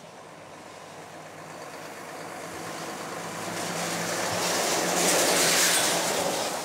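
A road vehicle passing close by: engine and tyre noise grow steadily louder to a peak about five seconds in, then ease slightly.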